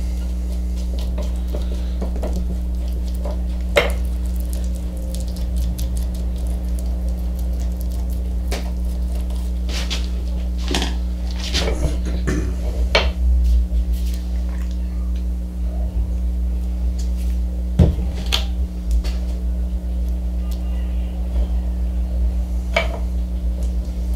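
Small oak blocks clacking and knocking against each other and the bench as they are set in place for an end-grain cutting board glue-up, in scattered sharp taps, over a steady low hum.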